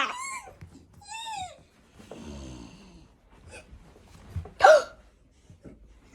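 A few short, wordless voice sounds with sliding pitch: squeaks and gulps, the loudest a sharp yelp just before five seconds in.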